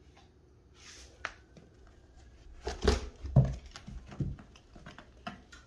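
Cat climbing a carpeted cat tree: paws thumping against it and claws scraping the carpet. A cluster of dull thumps and scratches comes about three seconds in, with a sharp click before it and lighter ticks after.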